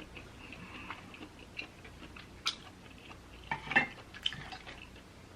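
A person eating close to the microphone: soft chewing broken by a few sharp clicks and taps, with the most distinct ones about two and a half seconds in and around four seconds.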